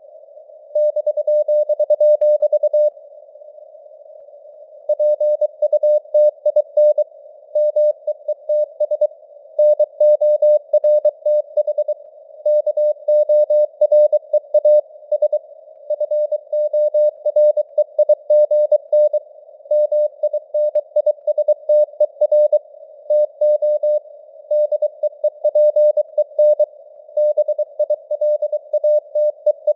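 Morse code news sent at 23 words per minute as one steady mid-pitched tone keyed on and off in dots and dashes, over a narrow hiss of simulated radio band noise, the signal strength varying (QSB). The keying pauses for about two seconds a few seconds in.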